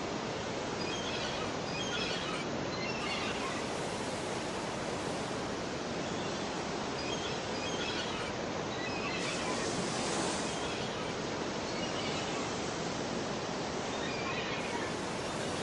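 Steady outdoor ambience recording: an even rushing hiss, with faint short high chirps coming back every second or few seconds.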